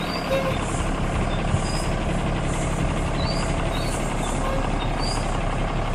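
Large bus's diesel engine running steadily as the coach drives slowly past.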